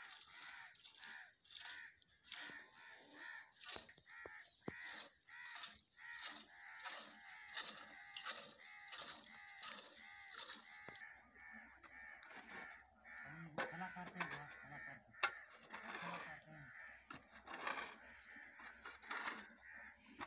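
A flock of birds calling over and over, short pitched calls coming a few times a second and overlapping. There is a brief low call about two-thirds of the way through and a single sharp click soon after.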